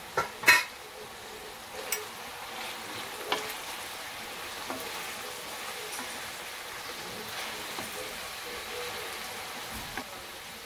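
Food frying in a pan with a steady sizzle while it is stirred, with a few sharp knocks of the spoon against the pan, the loudest about half a second in.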